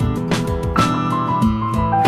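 Background music: a gentle instrumental with plucked guitar and sustained keyboard notes over a steady beat.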